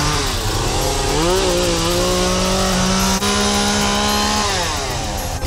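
Chainsaw running at high revs while cutting brush, its pitch sagging and climbing as it works. It falls away near the end as the throttle eases off.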